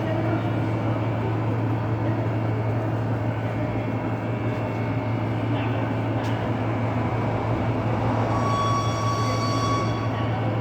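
Olive-oil decanter centrifuge running steadily with a strong electric-motor hum. A high whine fades out early and comes back about eight seconds in.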